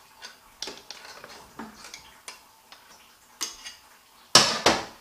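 Screwdriver prying the fluid pipes off a 09A automatic transmission case: a string of light metallic clicks and taps, then two loud sharp clacks close together near the end.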